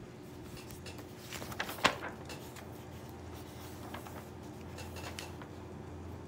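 Paper and desk handling as a textbook's pages are turned: a cluster of small clicks and taps about one and a half seconds in, the sharpest near two seconds, then a few faint ticks. A steady low room hum runs underneath.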